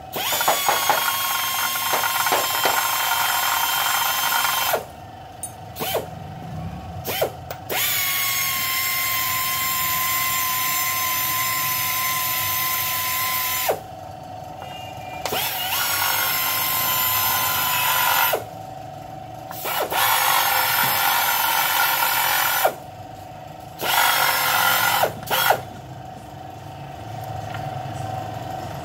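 Handheld power wrench running bolts out of an engine's cylinder head: a steady whine with hiss, in four runs of a few seconds each that stop abruptly and restart, with a few short blips between them.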